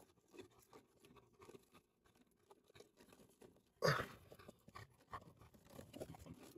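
Faint crunching and handling noises on gravel, with a louder scrape about four seconds in as a hand grabs the RC truck.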